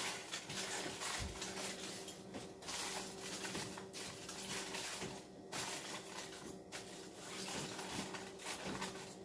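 Aluminium foil crinkling and rustling as it is torn off and pressed over a dish, in irregular bursts with short pauses, over a steady low hum.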